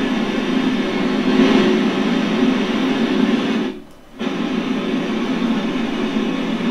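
Radio static from an amateur radio receiver's speaker: a steady rushing hiss with no voice in it, as calls to the International Space Station go unanswered. It cuts out for about half a second near four seconds in, then comes back.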